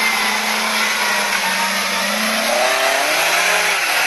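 Engine of a modified off-road 4x4 running under load as it drives through deep mud ruts, with a hiss over it. The revs climb about two and a half seconds in and drop back near the end.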